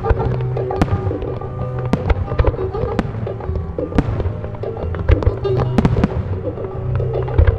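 Aerial firework shells from a Ricard Caballer (RICASA) display bursting with sharp bangs about once a second, some bangs closer together, over a musical soundtrack of sustained notes.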